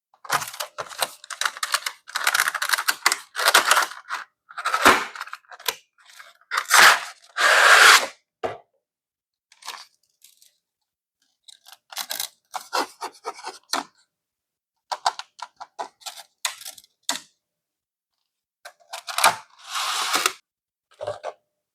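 Packaging being torn open and handled: irregular bursts of tearing and crinkling, some drawn out and some short, with brief pauses between them.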